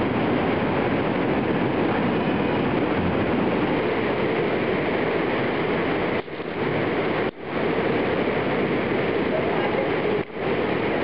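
Steady rushing of a waterfall and stream in a narrow rock gorge, an even hiss-like roar of water, broken by brief dropouts about six, seven and ten seconds in.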